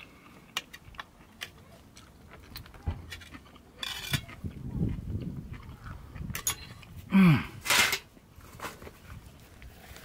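A person eating a burger: chewing with small clicks, a couple of breaths, and a short appreciative "mmm" hum about seven seconds in.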